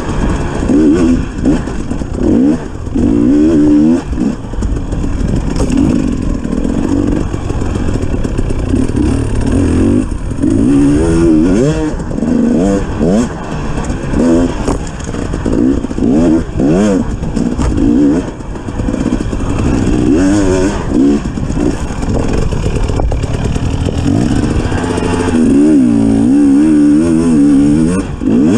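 A 250 cc enduro dirt bike's engine, heard from a camera mounted on the bike, revving up and down as the throttle is worked along a rough trail, its pitch rising and falling every second or two.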